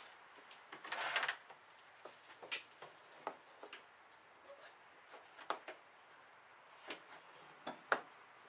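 Scattered light clicks and knocks, with a short rustling cluster about a second in, from steering parts and tools being handled in the front of a snowmobile chassis.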